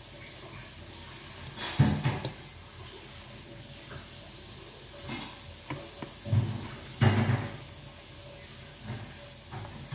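Fork clinking and scraping on a plate during eating: a handful of short clinks and knocks, the loudest about two seconds in and about seven seconds in, over a steady faint hiss.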